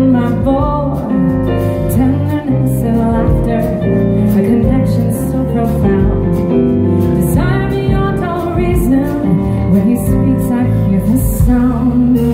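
Live smooth jazz from a small band with keyboard, electric guitar and drums, with a female singer.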